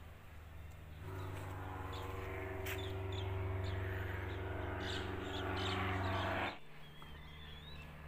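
Birds chirping over a steady droning hum. A louder machine-like drone with an even pitch swells in about a second in and cuts off suddenly shortly before the end.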